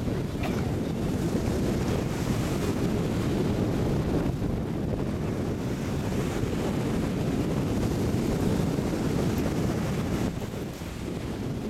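Wind buffeting the microphone over the steady wash of surf breaking on a beach, a constant low rushing noise that eases slightly near the end.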